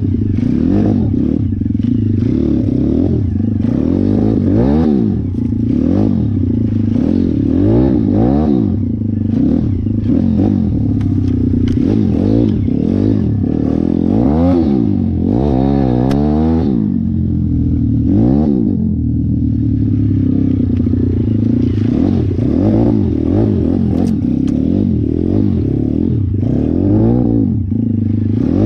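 Single-cylinder four-stroke engine of a YX 150 pit bike running under riding load. The revs rise and fall every second or two as the throttle is opened and closed.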